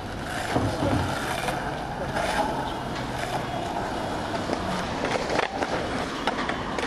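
Skateboard wheels rolling steadily over rough asphalt. From about five seconds in come several sharp clacks as the board meets a low flat bar and slides on it.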